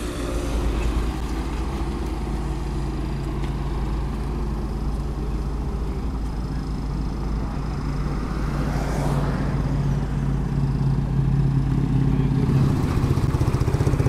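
Heavy-equipment diesel engine running steadily, growing slightly louder and more pulsing near the end.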